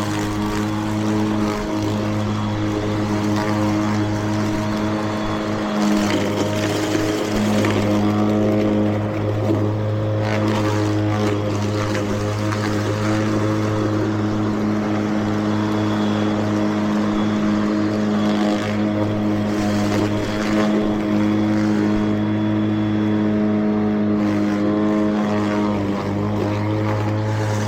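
Mowrator 2WD battery-electric remote-control mower running with its blade spinning while it cuts grass: a steady hum of several tones that swells a little at times.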